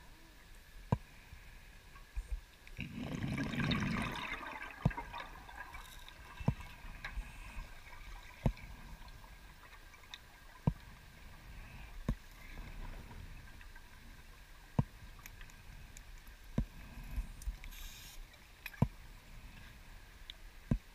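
Underwater sound on a closed-circuit rebreather dive: sharp single clicks about every two seconds over a low hum, with a short rush of bubbling gas about three seconds in.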